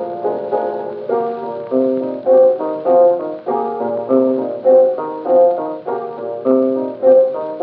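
Piano playing an instrumental blues break between sung verses, chords struck on a steady beat. It is an acoustic-era 1923 78 rpm record, so the sound is thin, with no deep bass and no bright treble.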